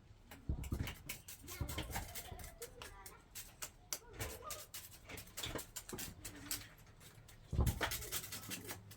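Irregular knocks and clicks, with the heaviest knock about three quarters of the way through, over faint voices.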